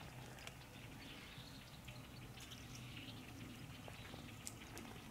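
Quiet outdoor ambience: faint scattered ticks and light rustles over a low steady hum, with no clear single source.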